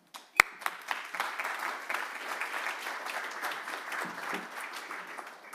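An audience applauding, a dense patter of many hands clapping that stops abruptly near the end. A single sharp knock, the loudest moment, comes just before the clapping begins.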